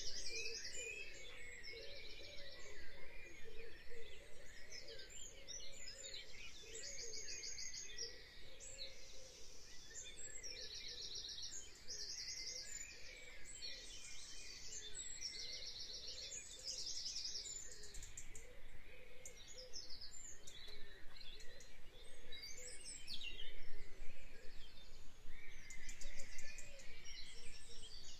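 Woodland birds singing, with short rapid trills repeated every second or two, over a steady low background rumble.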